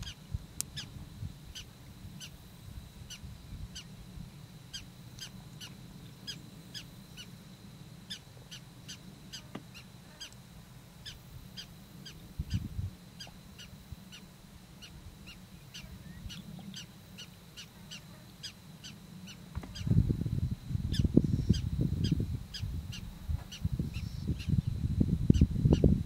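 A long run of short, sharp, high-pitched animal calls, about two to three a second. From about twenty seconds in, loud irregular low rumbling joins them.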